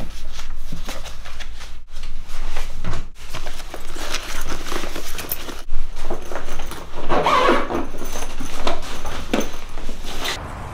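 Handling noises as papers and a backpack are picked up, packed and lifted: irregular rustles and light knocks, with a louder rustling burst about seven seconds in.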